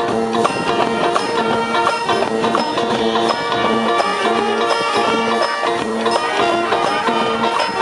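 High school marching band playing: winds and brass holding sustained pitched notes over a steady run of percussion strokes.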